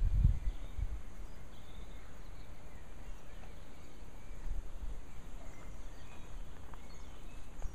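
Outdoor garden ambience: a low rumble, strongest in the first half second, then a steady background hush with a few faint bird chirps scattered through it.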